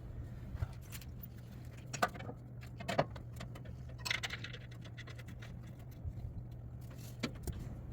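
Scattered light metallic clinks and scrapes of bolts and hardware being handled while bolts are hand-tightened into a steel shield under a vehicle, over a low steady hum.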